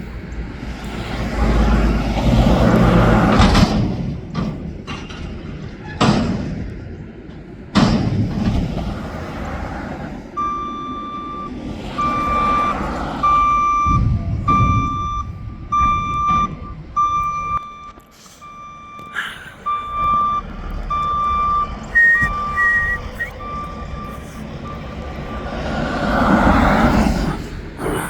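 Mack McNeilus front-loader garbage truck's reversing alarm beeping about once a second for some fifteen seconds, over the truck's running engine. The engine swells near the start and again near the end, and there are a few sharp knocks.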